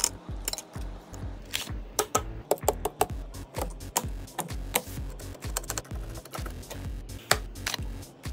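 Background music with a steady, deep bass beat and sharp clicking percussion.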